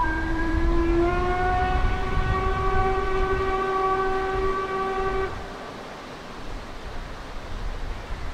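Steam locomotive whistle giving one long blast of about five seconds, a chord of several tones that fills out after about a second, over a low rumble.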